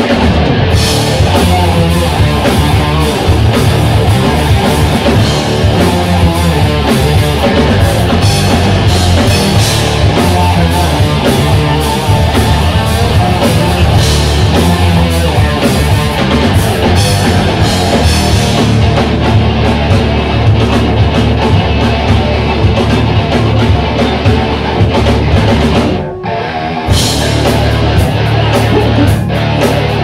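Rock band playing live: electric guitars and drum kit in a loud, driving rock song. Near the end the band breaks off for about a second before crashing back in.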